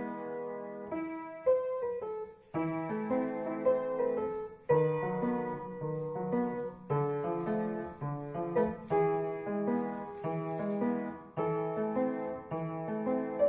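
Solo piano playing a flowing piece: a repeating pattern of low notes under a melody, with phrases starting afresh on firm struck chords.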